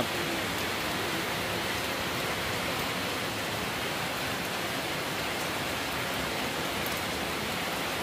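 Heavy rain falling steadily, an even hiss with no breaks.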